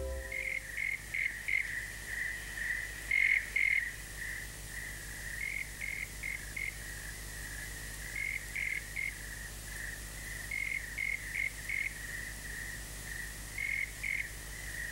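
Crickets chirping at night: a steady high trill with louder chirps in short groups of three or four, coming every couple of seconds.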